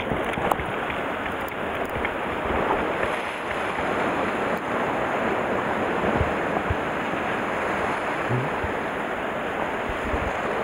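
Sea surf washing steadily against a rocky shoreline, an even hiss of breaking water.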